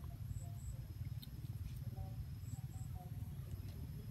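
Quiet outdoor ambience: a steady low rumble with faint, short high chirps that come in pairs a few times, and a couple of soft clicks.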